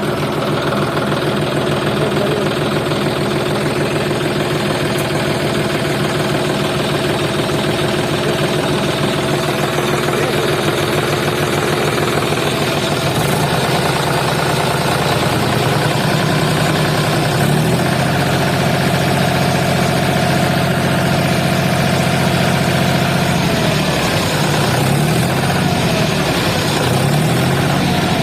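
An engine running steadily. Its pitch steps up twice partway through, drops back, then wavers up and down near the end as the load or throttle changes.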